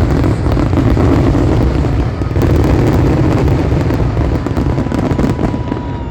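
Fireworks in a dense, continuous barrage, typical of a show's finale: overlapping booms and rapid crackling, with a thin whistling tone near the end.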